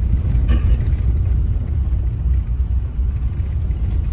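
Steady low rumble of a car driving on the road, with engine and tyre noise heard from inside the cabin.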